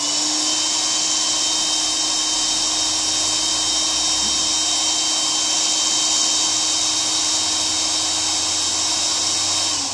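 Electric air pump running steadily: a motor hum with a rush of air, blowing on a fidget spinner to spin it. It is switched off right at the end and winds down.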